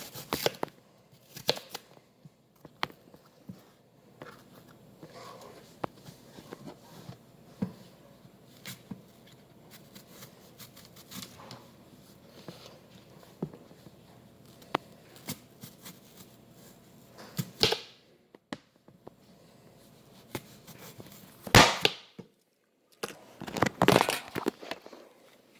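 Kitchen knife cutting apple slices on a cutting board: scattered soft cuts and taps, with a few louder knocks in the last third.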